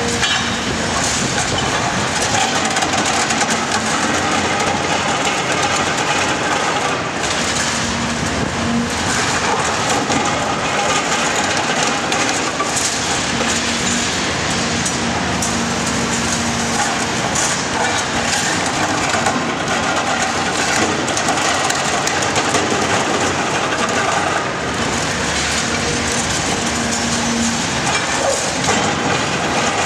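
Cat 340SB demolition excavator's diesel engine and hydraulics running under load while its Cat MP 345 multi-processor jaws crush concrete, with continual cracking and crunching of breaking concrete and falling rubble and a hum that comes and goes.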